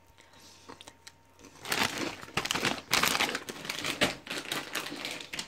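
Foil-lined plastic snack bags crinkling as they are handled, starting about a second and a half in and going on as a dense run of crackles.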